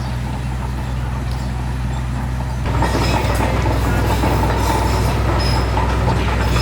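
An engine running steadily with a low hum, growing louder about two and a half seconds in.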